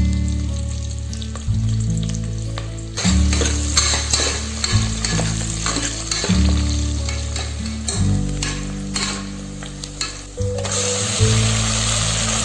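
Mutton frying and sizzling in hot oil in a pan, stirred now and then with scraping strokes; the sizzle grows louder near the end. Background music with held low notes runs underneath.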